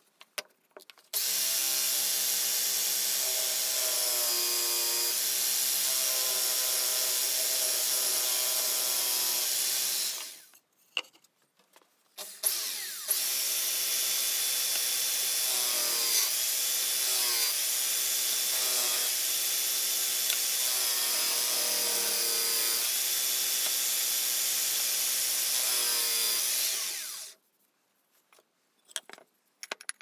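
Electric drill clamped horizontally as a disc sander, its sanding disc grinding the curved edge of a wooden piece. It runs for about nine seconds, stops for a couple of seconds, then runs again for about fourteen seconds with its motor pitch wavering before it stops.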